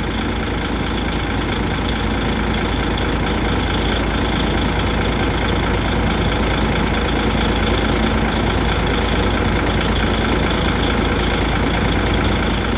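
DAF truck's diesel engine idling steadily.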